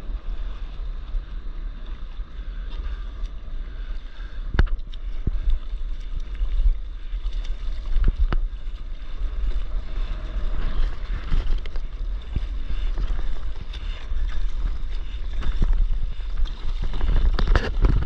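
Wind buffeting the microphone over water lapping and splashing around a stand-up paddleboard, with a few sharp knocks. Near the end the splashing thickens into a steady rush of water along the board as it runs with a wave.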